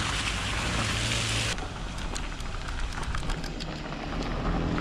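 Tyres rolling through a large puddle, with a hiss of water spray for the first second and a half, then a rattling of clicks as the wheels run on over rough ground.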